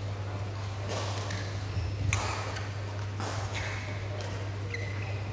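Three sharp knocks about a second apart, typical of a badminton racket hitting a shuttlecock, then a short high squeak of a shoe on the court mat near the end, over a steady low hum from the hall.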